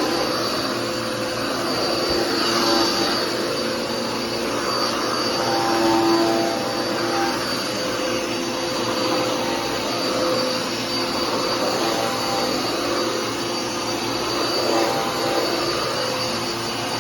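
Dirt Devil PowerMax Pet upright vacuum cleaner running steadily, its motor whine and airflow swelling and dipping every couple of seconds as it is pushed back and forth over the floor.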